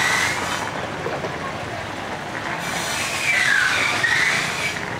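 Busy street noise with a steady hiss of traffic and wind, and a high gliding squeal that dips and rises, once at the start and again about three seconds in.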